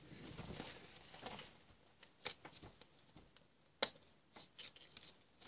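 Faint handling of a small cardboard knife box: a soft rustle as it is picked up, then a few light clicks and taps, the sharpest about four seconds in.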